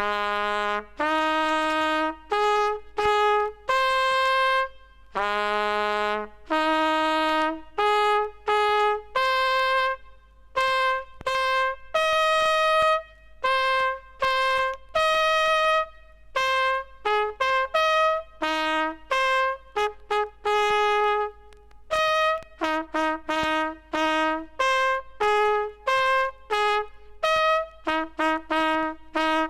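Japanese military bugle sounding a call of separate notes on the bugle's few natural pitches, starting abruptly after silence and breaking into quick short notes about three quarters of the way through.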